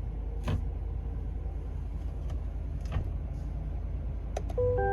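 In a 2022 Chevrolet Silverado's cab, with the engine off, a couple of faint clicks sound over a low steady hum as the shifter is tried. Near the end comes a short electronic warning chime of a few steady tones: the truck refusing to shift out of park because the seatbelt is unbuckled.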